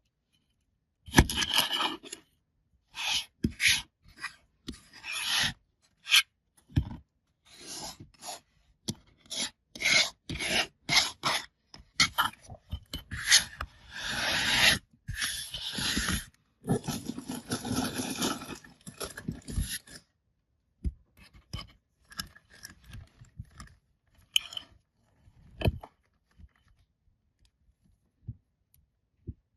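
Kinetic sand and its packaging being handled and opened, making irregular bursts of scraping and rubbing. The bursts stop about two-thirds of the way through, leaving a few scattered taps.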